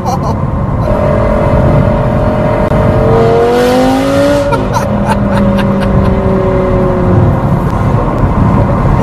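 Sports car engine under way, its pitch climbing for a second or so and dropping abruptly about four and a half seconds in, as at a gear change. Sharp crackles and pops from the exhaust come near the start and again through the second half.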